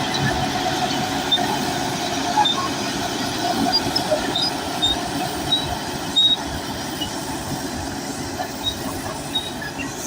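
Bulldozer at work: its diesel engine runs steadily while the steel crawler tracks clank and give off many short, high squeaks.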